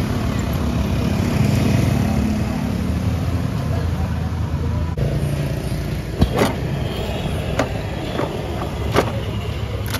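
Street traffic with motorbike engines running past. In the second half come a few sharp metal clanks as the round crepe pan in the steel burner box of the portable cart kitchen is handled.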